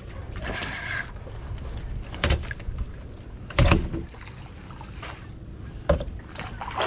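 A few sharp knocks and bumps against a boat's fiberglass hull as a landing net on a long pole is handled over the side, the loudest about three and a half seconds in, with a short hissing rush near the start.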